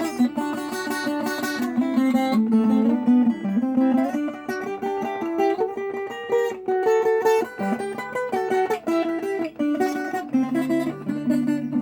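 Viola caipira with a Brazilian rosewood (jacarandá) body, played solo: a picked melody mixed with chords, continuous throughout.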